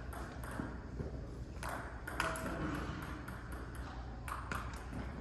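Table tennis balls clicking off bats and tables: a few scattered, sharp hits, not a steady rally, over a steady low hum.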